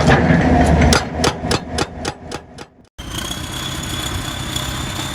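Heavy machinery: an engine running loudly, then a run of sharp knocks, about three to four a second, that fade away. About three seconds in it cuts abruptly to a steady machine drone with a high whine.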